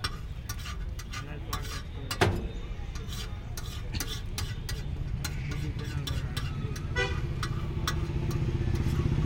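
Flat handheld grater rasping over a block of cheese in short repeated strokes, a few a second, with a sharp knock about two seconds in. Street traffic runs underneath, a motorcycle engine growing louder near the end.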